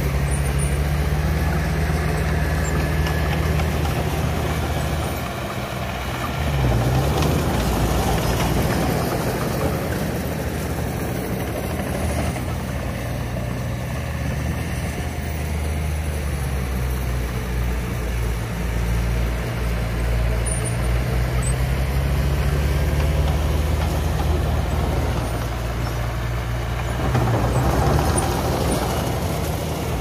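Komatsu D20A small crawler dozer's diesel engine running steadily while it pushes dirt. Its engine note dips briefly and picks back up twice, about seven seconds in and near the end.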